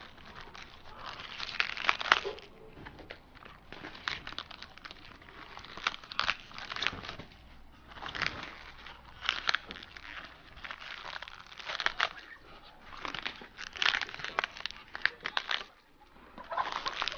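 Outer leaves being torn off a head of cabbage by hand: crisp crackling snaps that come in short bouts every second or two.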